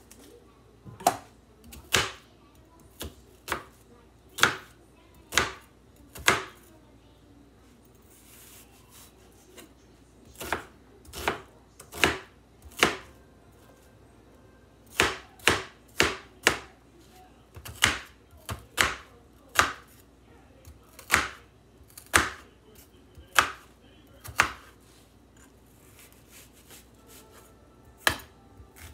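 Chef's knife slicing an onion on a plastic cutting board: irregular sharp knocks of the blade striking the board, roughly one a second, with pauses of a few seconds between runs.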